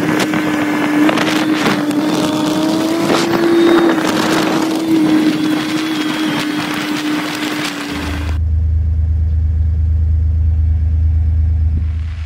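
Side-by-side UTV driving fast along a dirt ranch track: a steady whine over constant rattling and clatter. About eight seconds in, this cuts abruptly to a low steady vehicle hum, like an engine idling.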